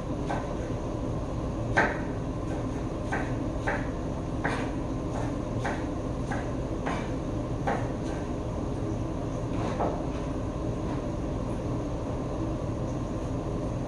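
Kitchen knife chopping tomatoes on a wooden cutting board: irregular knocks of the blade on the wood, roughly one or two a second, fewer near the end, over a steady background hum.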